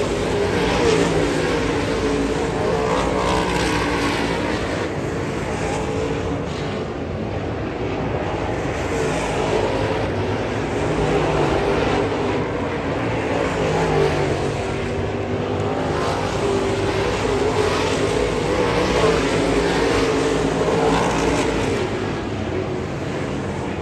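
Late model race car engines running on a dirt oval, a steady engine drone that rises and falls in pitch as the cars go around.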